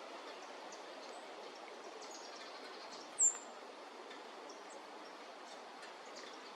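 A steady outdoor hiss with faint, scattered high chirps, and about three seconds in, one loud, short, high bird note sliding downward.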